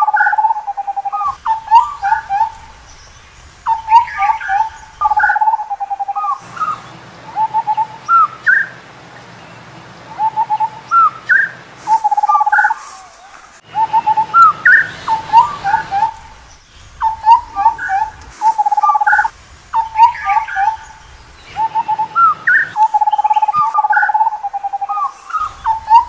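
Indian scimitar babbler calling in repeated phrases every couple of seconds, each a held low whistled note followed by several quick, higher rising notes.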